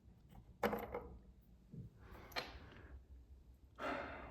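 A few light clicks and knocks as a replacement faucet valve is handled and pressed into the faucet body, with the sharpest click about two-thirds of a second in.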